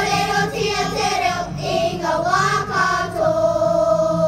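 Girls' kapa haka group singing together in unison, moving between notes and then holding one long note from about three seconds in.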